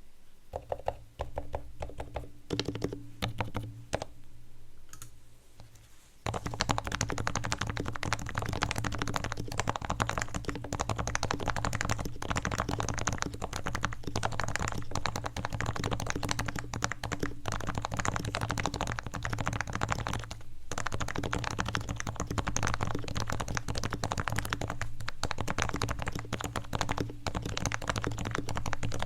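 Typing on a Realforce R2 Topre electro-capacitive keyboard with 55 g switches. A few separate keystrokes come first, then fast continuous typing starts about six seconds in.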